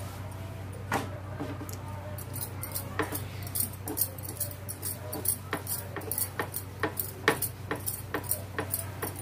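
Wooden rolling pin rolling out a roti on a wooden board: rhythmic knocking and clinking about three times a second, starting a couple of seconds in, from the pin and board with the metal bangles on the roller's wrist jangling in time.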